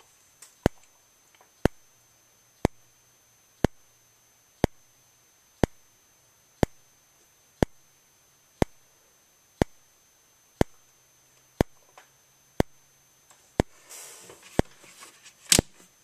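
System Sensor SpectrAlert P241575 fixed-candela strobe flashing once a second, each flash giving a sharp click. Near the end there is faint rustling and one louder click.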